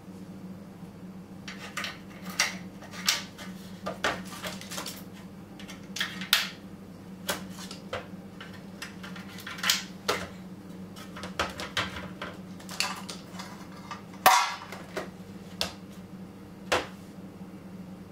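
Irregular clicks and clacks of small sealed lead-acid batteries, plastic pieces and wire connectors being handled and seated in a metal UPS battery tray, with one sharper clack about 14 seconds in. A steady low hum runs underneath.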